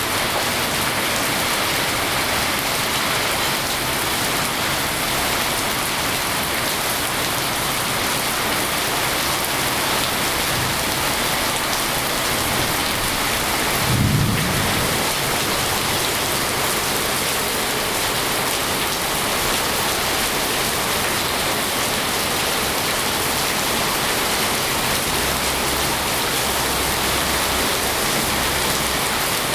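Steady rain falling, an even hiss of heavy rain, with one brief low rumble about halfway through.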